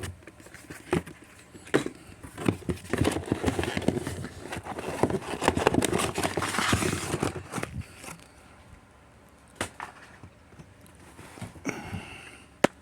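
Handling sounds of a cardboard box and its packing as an old 5G gateway is packed back into it: scattered knocks and clicks with scraping and rustling, busiest in the middle, then quieter, and one sharp click near the end.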